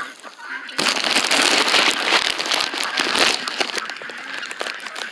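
Farm poultry calling in a loud, raucous chorus that starts about a second in and eases off near the end.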